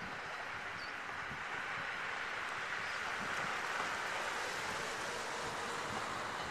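Electric passenger train rolling across a stone-arch viaduct at a distance: a steady wash of wheel-on-rail noise that swells a little midway, with wind on the microphone.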